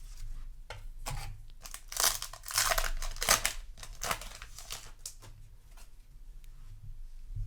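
Foil Yu-Gi-Oh! booster pack wrapper crinkling and being torn open. The loudest crackling comes between about two and three and a half seconds in, with lighter rustles around it.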